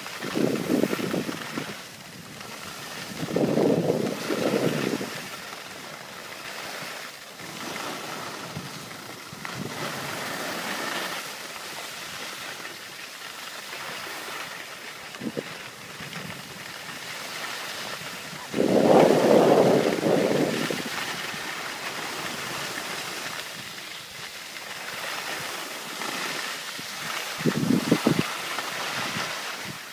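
Skis sliding over packed snow with a steady hiss, while wind buffets the microphone in four louder gusts, the strongest about two thirds of the way through.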